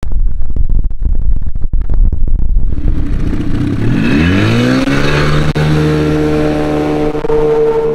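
Evinrude E-TEC 60/40 two-stroke jet outboard revving up as the jon boat pulls away from the bank. The engine pitch rises about four seconds in, then holds steady under the hiss of the jet's water spray. Before that there is a low rumble with scattered knocks.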